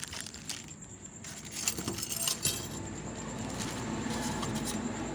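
Small metal parts clinking and rattling as they are handled: hot air blower nozzles being picked up, with a few sharp clicks about two seconds in.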